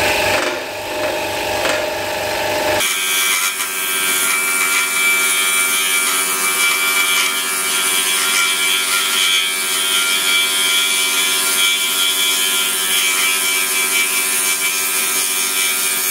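Pegas scroll saw running with a number 3 Pegas MG blade, making a bevel cut around a circle through two stacked pieces of 3/8-inch wood for an inlay. The sound shifts about three seconds in, then holds steady.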